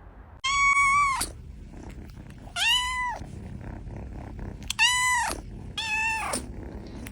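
Domestic cat yowling during a standoff: four drawn-out, wavering calls that each rise and then fall in pitch, the last two close together.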